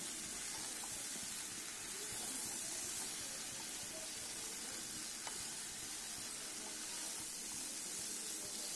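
Baby potatoes and chopped vegetables in tomato masala sizzling steadily in hot oil in a frying pan while being stirred with a spatula.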